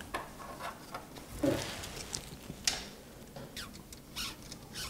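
A handful of light clicks and taps, with one heavier knock about a second and a half in, from an NZXT Kraken Z63 liquid-cooler radiator and its fans being fitted against the side of a PC case.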